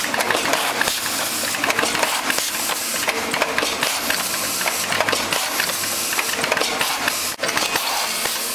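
Automatic wrap-around and front labelling machine running with its belt conveyor: a steady mechanical whirr full of fine, rapid clicking and rattling, briefly cutting out about seven seconds in.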